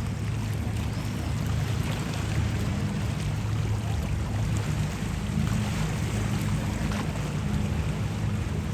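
Steady low engine rumble, with an even hiss of noise over it.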